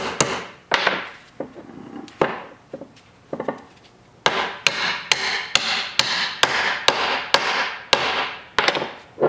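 Mini sledge hammer striking a new Dana Spicer U-joint bearing cap, driving it into the yoke ear of a front axle shaft. Sharp strikes that ring briefly: a few spaced blows at first, then a steady run of about two to three blows a second from about four seconds in.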